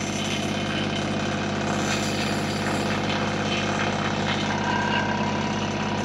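Massey Ferguson subcompact tractor's engine running at a steady speed while it works its backhoe.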